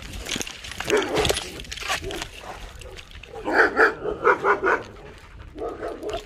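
Dog barking: a quick run of about six barks about halfway through, with a few more near the end.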